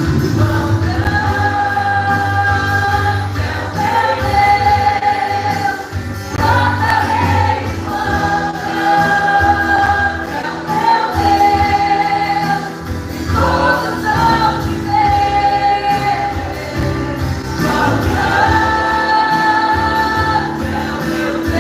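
Live gospel worship band playing, with singers in a sung Portuguese worship song holding long notes of about two seconds each, phrase after phrase.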